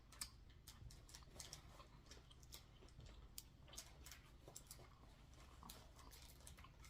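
Faint, scattered light clicks and rustles of fast-food packaging being handled, over a quiet low hum.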